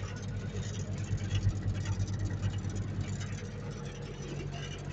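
Diesel engine of a Mertz 3250 floater running steadily, heard from inside its cab.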